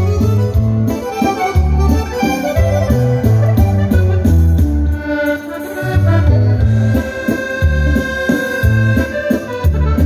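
Diatonic button accordion (organetto) playing a lively dance tune over a steady, rhythmic bass line.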